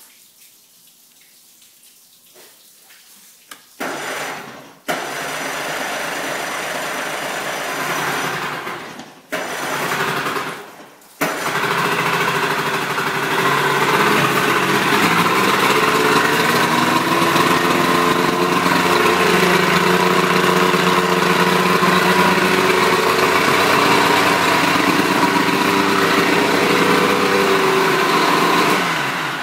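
70 hp Evinrude outboard motor started with the key: after a few quiet seconds it turns over in short stretches with brief breaks, catches about eleven seconds in, and runs steadily. It is shut off near the end.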